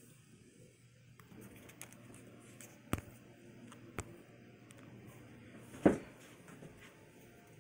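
Handling noise in a quiet room: two short sharp clicks about three and four seconds in, then a louder thud near six seconds.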